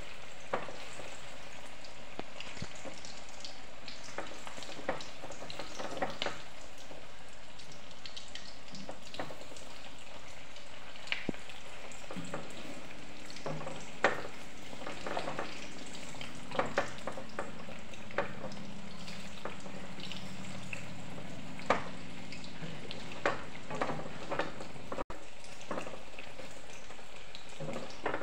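Batata vadas deep-frying in hot mustard oil in an iron kadhai: a steady sizzle, with scattered sharp clicks of a steel slotted spoon against the pan as the vadas are turned.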